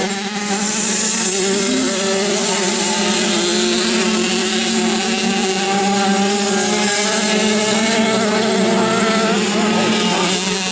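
Several 50cc classic two-stroke grasstrack motorcycles racing together, their engines buzzing at high revs with pitches that waver up and down as they ride.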